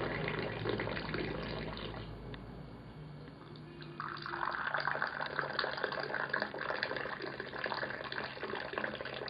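Hot tea poured from a metal teapot held high into small glasses, a steady stream of liquid splashing into the glass. The stream stops about two seconds in and starts again, louder, about two seconds later, running on until just before the end.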